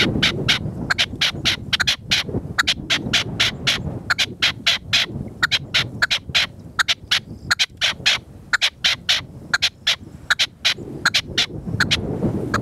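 Red-legged partridges calling: a long run of sharp, repeated notes, several a second, with a short break about halfway. Low wind buffeting on the microphone runs underneath.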